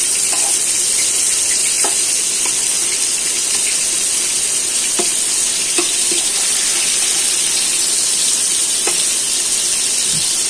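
Bottle gourd leaf-wrapped chicken parcels sizzling steadily in oil in an aluminium frying pan as they finish cooking, with a few light taps of a metal spatula against the pan.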